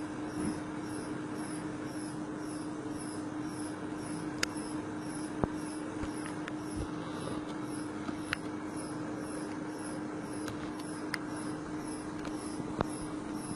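A steady hum from the loaded testing machine, with scattered sharp cracking ticks from the carbon-textile-reinforced geopolymer panel bending under four-point load: the mortar matrix cracking as it deflects. The loudest snap comes about five seconds in, and a faint high chirp repeats about three times a second throughout.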